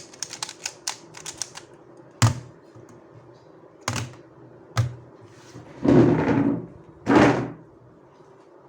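A magnetic 3x3 speedcube being turned fast, a quick run of sharp plastic clicks, followed by three separate knocks and then two short rushing noises.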